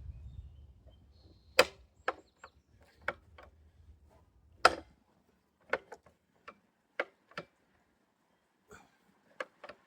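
Scattered sharp clicks and knocks of tools and wooden parts being handled during woodworking assembly, irregularly spaced, the two loudest about one and a half and four and a half seconds in. A low hum sits under the first half and stops about five seconds in.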